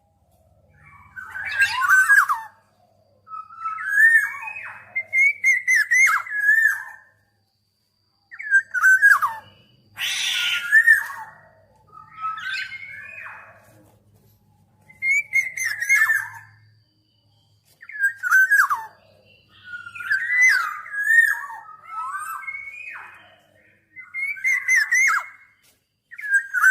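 Black-naped oriole singing: repeated fluty, whistled phrases that slide up and down, each lasting a second or two with short pauses between them. One harsher, noisier note comes about ten seconds in.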